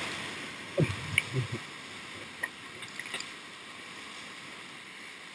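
Whitewater of a river rapid rushing around an inflatable oar raft, with a few low thumps about a second in as the raft hits the waves.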